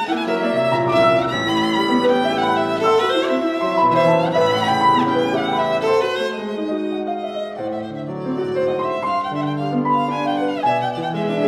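A bowed string instrument of the violin family playing a sustained melodic line with piano accompaniment: classical chamber music.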